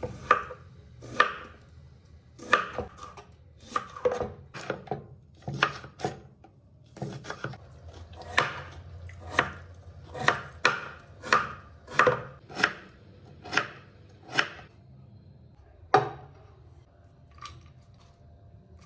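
Knife chopping on a cutting board: about twenty sharp, steady strokes, roughly one every half second to second, with a final stroke after a short pause near the end, over a low steady hum.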